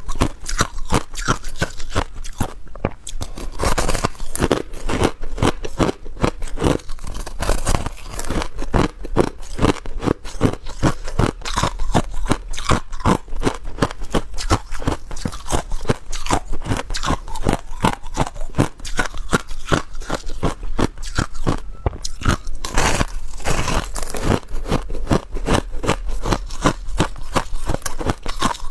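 Close-miked biting and chewing of crushed ice: a dense, unbroken run of sharp, crisp crunches, several a second.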